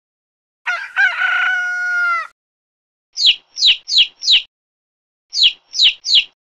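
A rooster crows once, one long call. Then a chick peeps seven times, each peep falling in pitch, in a quick run of four and, after a short pause, a run of three.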